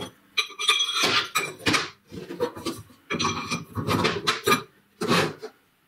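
Steel shaft and flat-bar parts handled on a steel-topped workbench: metal clanks, scrapes and clatter in several bursts, some with a short metallic ring.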